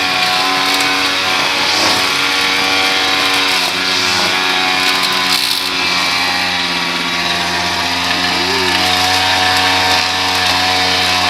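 Small petrol engine of lawn-care equipment running steadily, its pitch shifting slightly a few times.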